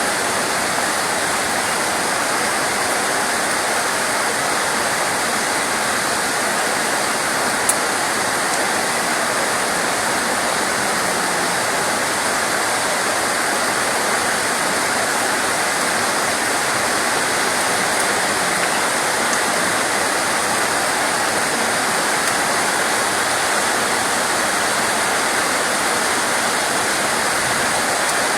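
Rain falling steadily, an even unbroken hiss, with a single sharp tick about eight seconds in.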